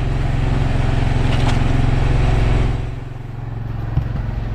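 Fishing boat's engine running steadily with a rushing noise over it; the sound eases off about three seconds in, and there is a single knock near the end.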